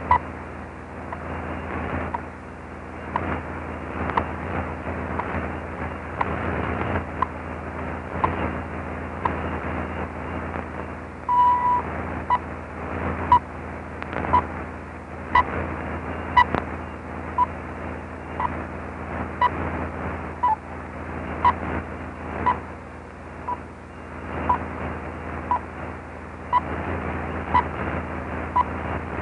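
A National Bureau of Standards time-signal broadcast on 10 MHz, received on a Realistic DX-302 shortwave receiver: short beeping ticks about once a second, with one longer beep about 11 seconds in, over shortwave static crackle and a steady hum.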